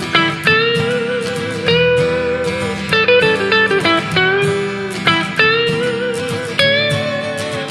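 Instrumental break in a blues-rock ballad: a lead guitar solo of plucked notes with bends and slides over a band backing.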